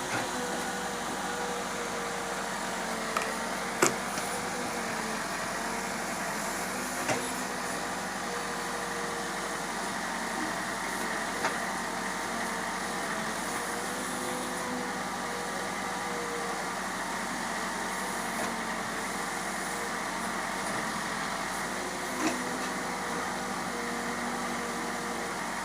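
Case backhoe loader's diesel engine running steadily under work, with a few sharp knocks, the loudest about four seconds in.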